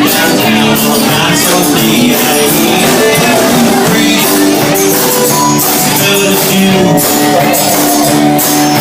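Live band playing loud amplified music with a steady beat and sustained pitched notes.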